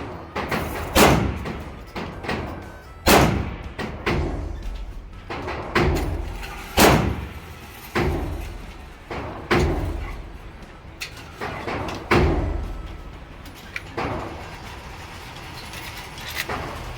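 A string of gunshots at a shooting range, irregularly spaced about one to three seconds apart, each with a reverberating tail. The last few shots are quieter.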